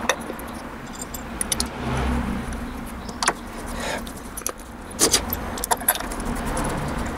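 Scattered small metal clicks and clinks as the spring-loaded diaphragm chamber cover is set back onto a motorcycle carburetor and its screws are driven in with a screwdriver.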